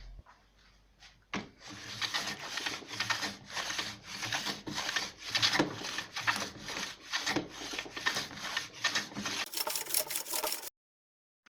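A hand tool working wood in repeated rasping strokes, about two a second, the sound of wood being sawn or filed by hand. It cuts off suddenly near the end.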